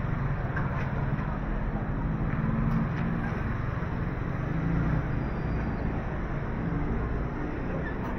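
Street traffic ambience: a steady hum of vehicle engines running close by, with the low drone of motors and general road noise.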